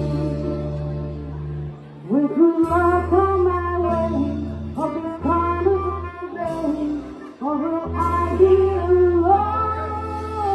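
A jazz and blues band playing live, with a singer holding long, wavering notes over guitar and low bass notes that change every second or two. The recording is poor in quality.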